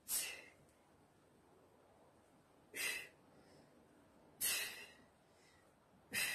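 A woman's sharp, breathy exhalations, four of them about one and a half to two seconds apart, each pushed out with the effort of an abdominal crunch.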